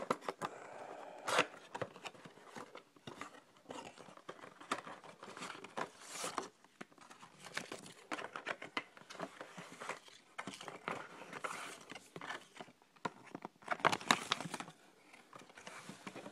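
Sunglasses packaging being opened and handled: irregular rustling and crinkling of wrapping with scattered clicks and taps, the sharpest about a second and a half in and a cluster around fourteen seconds.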